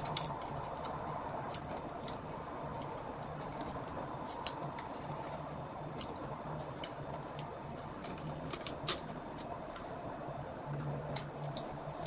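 Utility knife cutting and trimming thin shrunk-on plastic film around the bottom of a glass jar: scattered small clicks and scrapes over a steady faint hum.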